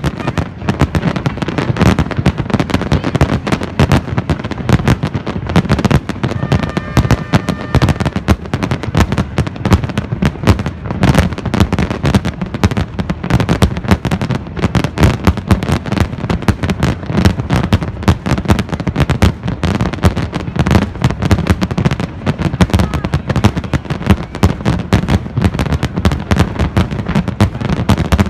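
Fireworks display at full intensity: a dense, unbroken barrage of bangs and crackles, many per second.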